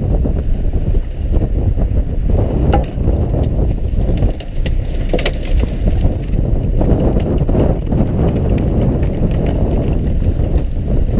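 Fishing boat at sea: a steady low rumble with wind noise on the microphone, and a run of sharp clicks and knocks on deck, thickest in the middle.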